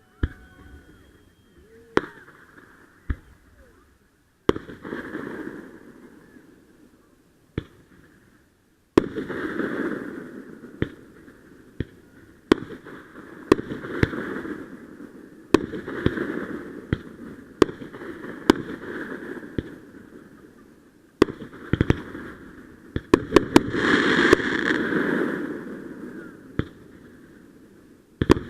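Aerial fireworks going off: a string of sharp bangs a second or two apart, most trailing a noisy wash that fades over a second or two. Near the end a quick flurry of several bangs comes in close succession.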